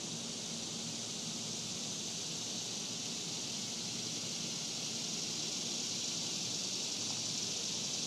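Steady high-pitched hiss with a faint low hum beneath, slowly getting a little louder; no distinct events.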